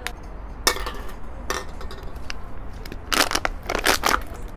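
Thin plastic water bottle crushed and crinkled in the hands, in short crackling bursts: one about a second in, another at about a second and a half, then a longer run of crinkling near the end.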